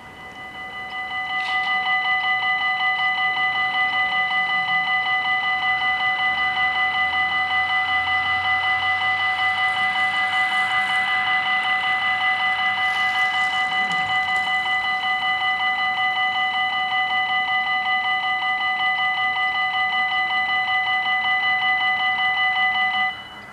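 Belgian level-crossing warning bells ringing: a rapid, evenly pulsing electronic ring that starts up, rings for about 23 seconds and cuts off suddenly, warning of an approaching train.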